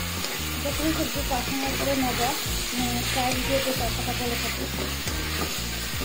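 Potato and cauliflower pieces sizzling in spiced oil in a pan while a spatula stirs them, with background music playing over it.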